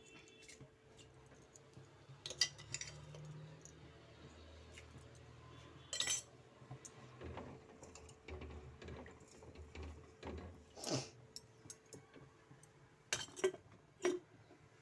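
Metal kitchen utensils clinking and knocking against pots and dishes: scattered sharp clinks, with three close together near the end, over a faint steady hum.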